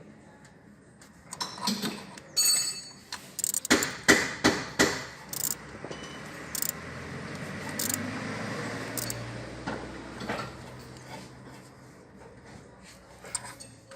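Metal tools and parts clinking, knocking and rattling in irregular strikes, with one ringing metallic rattle about two and a half seconds in. Between about six and eleven seconds in, a steady rushing noise with a low hum rises and fades under the knocks.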